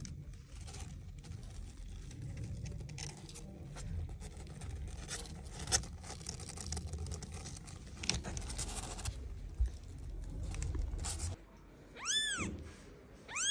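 Rustling and light crackling with handling noise over a low rumble, then a newborn kitten gives two short, high-pitched mews that rise and fall, near the end.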